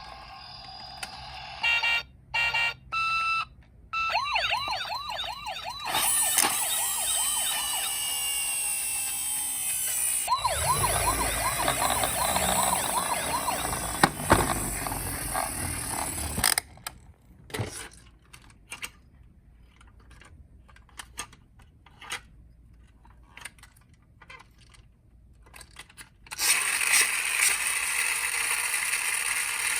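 Electronic sirens of toy police minicars: a few short beeps, then a fast warbling siren that sounds twice with a stretch of hiss between. After that come a quiet spell of scattered clicks and, near the end, a steady rushing noise.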